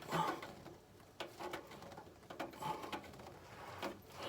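Faint scattered clicks and rustles of gloved hands working a newly fitted oil filter, gripping and turning it by hand.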